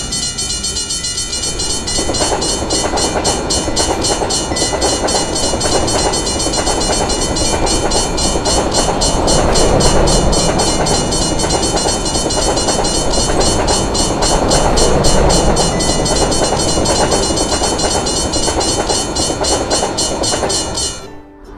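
Railway level-crossing bell ringing in a rapid, even rhythm while a train passes with a loud rushing rumble; both stop abruptly near the end.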